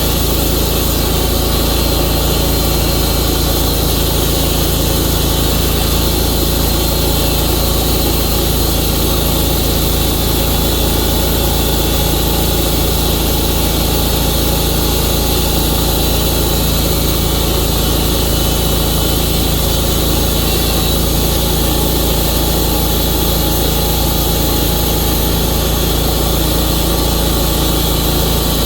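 Tru-Cut sawmill's engine running steadily.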